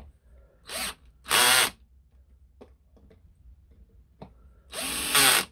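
Cordless drill with a Torx (star) bit driving the brake rotor's screws into an electric scooter's hub motor, in short bursts. A brief lighter run and then a louder one come about a second in, and the same pair again near the end.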